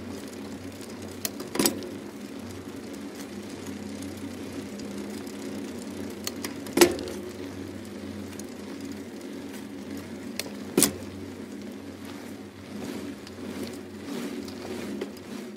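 A steady low hum, broken by three sharp clicks about two, seven and eleven seconds in.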